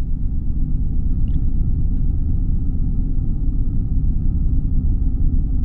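Loud, deep, steady rumbling drone from a horror film's sound design, with a faint higher hum above it.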